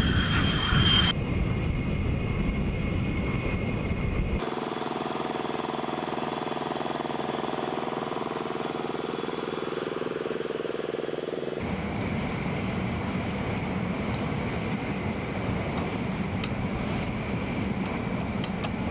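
Airbase flightline noise across several cuts. It opens with F-16 jet engine noise and a high whine. About four seconds in it changes to a steady machine hum with several held tones, and near the middle it gives way to a steady rushing noise with a faint high tone.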